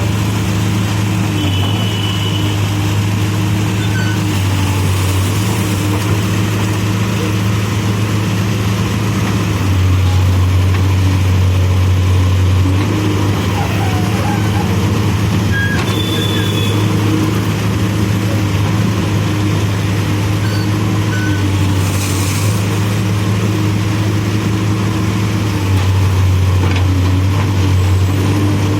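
Diesel engine of a CASE backhoe loader running steadily while digging. Its low note swells louder for a few seconds at a time, several times over, as the engine takes hydraulic load.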